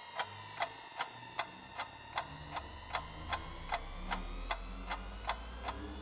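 Clock-like ticking, about two and a half ticks a second and perfectly even, over a sustained tone that sinks in pitch and then slowly rises, with low notes beneath: a suspense cue in the act's backing track played through the arena's sound system.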